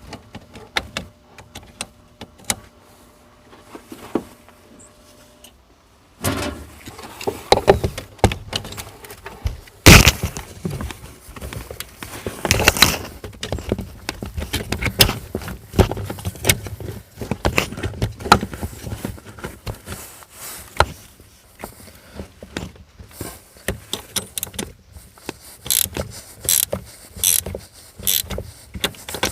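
Irregular handling clatter of clicks, clinks and knocks: sparse and faint at first, then from about six seconds in a dense, louder run of sharp knocks.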